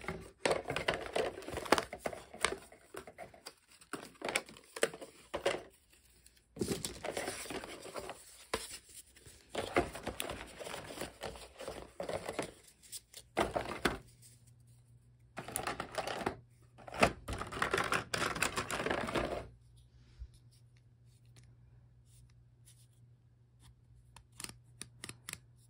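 Board-game components being handled: stiff cardboard punchboard sheets and cards rustling and scraping, with light clicks and knocks against the plastic box insert. The handling stops about 19 seconds in, leaving only a few faint clicks.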